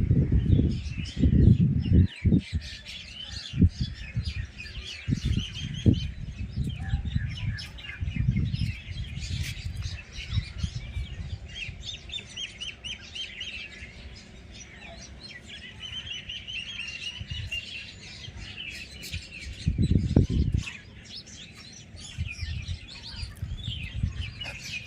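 Many small birds chirping and twittering continuously, short rapid calls overlapping one another. Irregular low rumbles come in bursts in the first few seconds and again about twenty seconds in.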